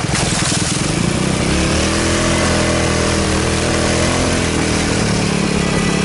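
A 150cc go-kart engine pulling the kart along a dirt trail, rising in pitch over the first couple of seconds and then running steadily at speed, under a loud steady rushing noise.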